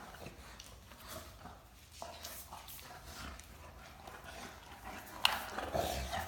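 Two Great Danes play-wrestling: scuffling and dog noises. There is a sharp knock about five seconds in, followed by a louder second of scuffling.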